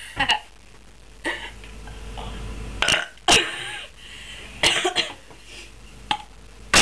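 Girls burping: a series of short burps, one after another with short pauses between.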